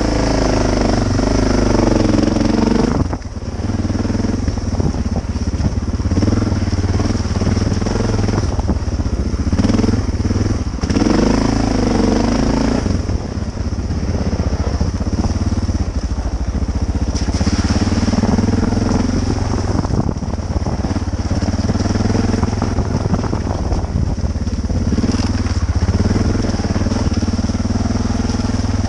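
Single-cylinder Suzuki dual-sport motorcycle engine running along a rough dirt trail, its revs rising and falling with the throttle over a constant low rumble.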